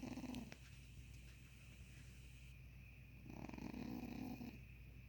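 A sleeping cat snoring, each breath a fluttering, purr-like rattle: a short snore at the start and a longer one about three seconds in.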